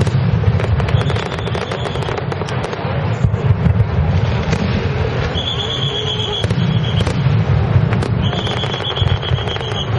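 Aerial fireworks bursting with dense crackling and a low rumble of booms. Three times, about a second in, past five seconds and past eight seconds, a steady high whistle holds for a second or so over the crackle.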